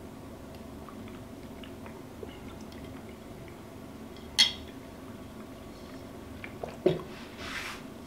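Someone eating soup: a metal spoon clinks sharply once against a ceramic bowl about halfway through, and a duller knock follows near the end. A short breathy slurp comes just after, over a steady low room hum.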